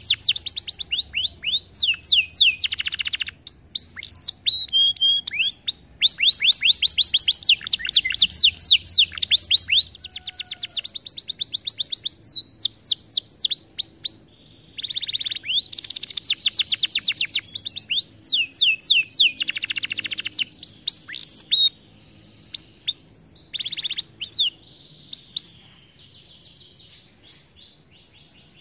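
Domestic canary singing a long song of rapid trills and rolls, fast repeated downward-sweeping notes in phrases separated by short pauses. The song grows quieter and sparser near the end.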